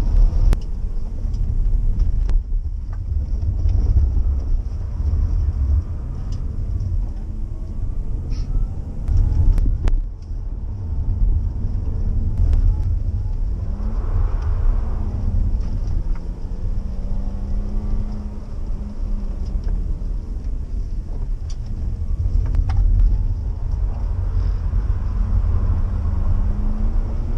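Inside the cabin of a BMW 3 Series (E46) on a wet road: a deep engine and road rumble, with the engine note rising and falling as the revs change, and a few sharp clicks.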